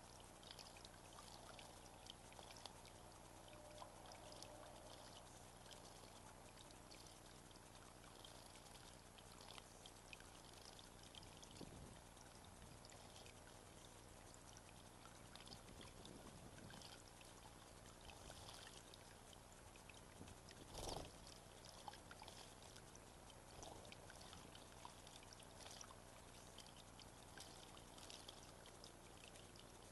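Faint water trickling and splashing in a small garden pond where birds bathe, with many small splashes and drips, and one louder brief sound about two-thirds of the way through.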